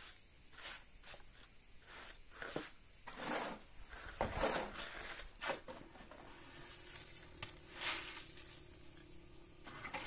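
Irregular scraping and crunching of gravel and stone being worked by hand with a shovel and trowel while a stone-slab path is laid, with a steady faint high hum behind.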